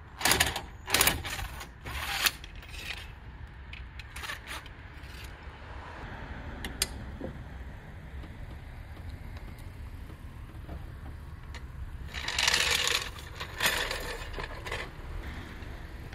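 Short bursts of metal clatter from hand tools on a car wheel: three in the first two seconds, then scattered light clicks, then two more bursts about twelve and thirteen and a half seconds in.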